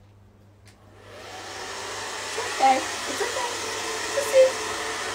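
Handheld blow dryer switched on about a second in, its steady blowing noise building up and then running evenly. Two short louder sounds stand out over it, near the middle and near the end.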